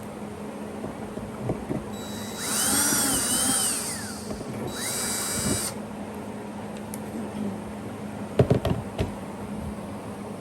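Cordless drill run through a misaligned hole in the bus's metal roof to line it up: two short runs, the first with a whine that speeds up and slows down, the second rising then holding steady. A few sharp knocks follow near the end.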